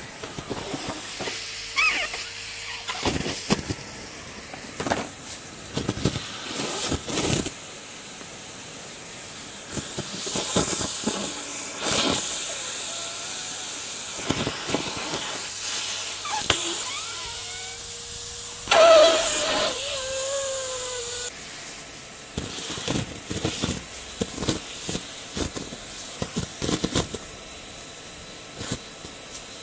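Henry 160 vacuum cleaner running with a steady rushing hiss, while leaves and grit rattle and knock up the hose in quick irregular clicks. About two-thirds of the way through comes a short, wavering, higher-pitched sound, the loudest moment.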